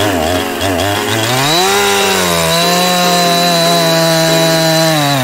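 Small petrol engine running, its pitch wavering for the first second, then revving up to a steady high drone that drops away at the very end.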